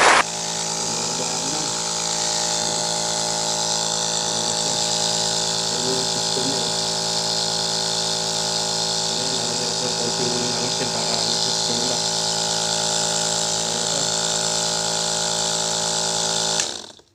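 Nebulizer's compressor running with a steady hum, switched on to test whether the unit works; it cuts off suddenly near the end.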